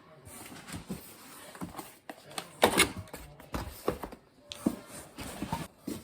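Irregular knocks and clicks, the loudest about two and a half seconds in.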